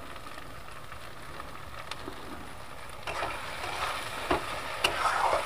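Spice masala frying in oil in a metal kadai with a low steady sizzle; about three seconds in, a metal spatula starts stirring it, knocking and scraping against the pan, and the sizzling grows louder in bursts.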